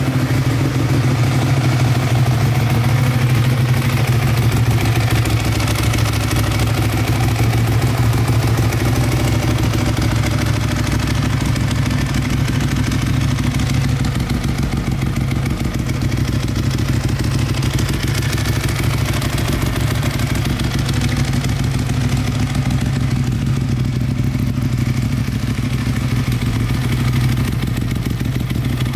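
Ducati 1198's 90-degree L-twin engine idling steadily through a Termignoni carbon exhaust.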